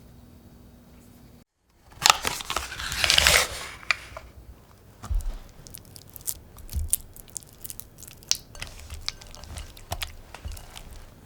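Food-preparation handling sounds: a loud, rough rustling burst about two seconds in, then scattered light taps and clicks.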